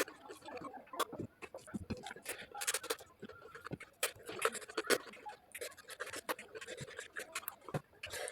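Close-up mukbang eating sounds of chicken curry: an irregular run of short clicks, smacks and scrapes.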